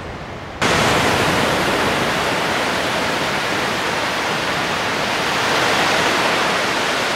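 Small waves breaking and washing up a sandy beach: a steady, loud hiss of surf that starts suddenly about half a second in and swells a little toward the end.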